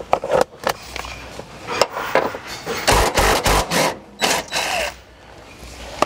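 Cordless DeWalt impact driver with a 14 mm socket hammering in short bursts as it undoes a seat belt anchor bolt, among clicks and knocks of the metal belt hardware.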